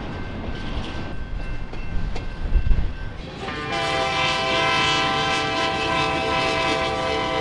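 Freight locomotive's air horn sounding a held chord of several notes from about three and a half seconds in, over the low rumble of the approaching train.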